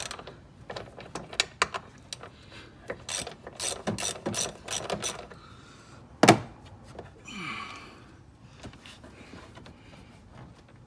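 Hand ratchet wrench clicking in quick runs as the bolts holding the transmission cooler line bracket at the radiator are worked loose, with one sharp knock about six seconds in.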